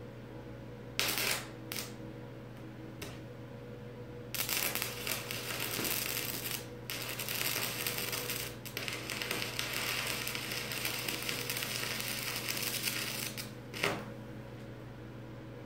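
Stick (arc) welding overhead on a steel beam and post. A few short sputters come as the electrode is struck, then a steady crackling arc runs from about four seconds in until near the end, with a few brief breaks and a last short sputter.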